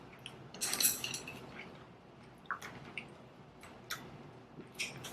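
Eating utensils clinking and scraping against food containers in short, scattered clicks, with a louder cluster about a second in.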